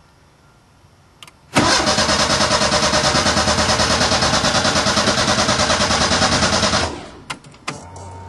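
Fisher Fury kit car's engine being cranked on the starter, turning over with an even, rapid pulse for about five seconds without firing, then cut off; a click just before the cranking begins.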